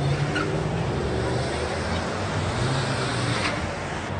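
A line of cars driving past one after another at low speed, a steady hum of engines and tyres on the road, with voices from the watching crowd mixed in.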